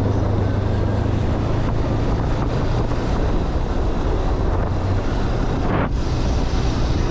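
Steady wind rushing over the microphone of a moving motorcycle, with a low engine rumble beneath it.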